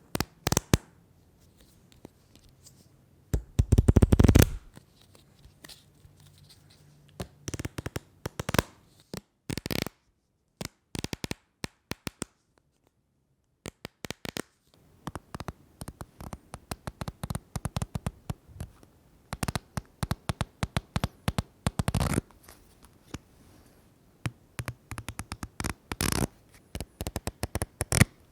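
Paper being torn over and over: a series of separate crackly rips, some short and some drawn out, with brief pauses between them. The loudest tears come about four seconds in and again about twenty-two seconds in.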